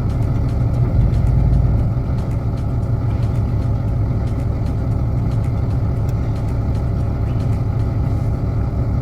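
Fishing boat's engine running steadily, a low rumble that swells briefly about a second in.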